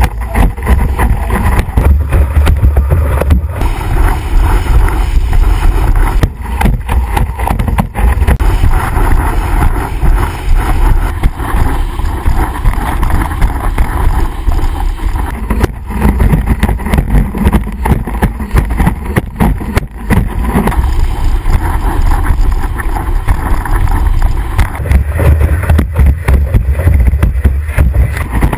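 Wind blasting a board-mounted action camera's microphone while a planing windsurf board rushes over the water, throwing spray, with frequent knocks as the board hits the chop.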